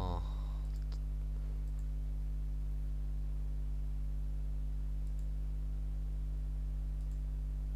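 A steady low hum with several overtones, with a few faint computer mouse clicks as items in a settings window are selected.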